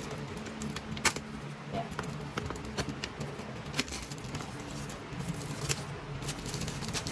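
Clear plastic shrink-wrap crinkling and crackling as it is peeled off a cardboard box, with scattered light clicks and rustles.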